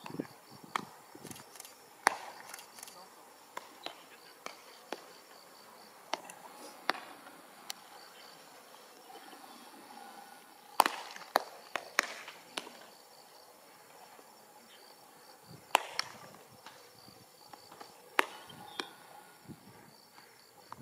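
Baseballs smacking into leather gloves during catch between pitchers: sharp pops at irregular intervals of a second to a few seconds, the loudest about eleven seconds in. A faint steady insect chirring runs behind.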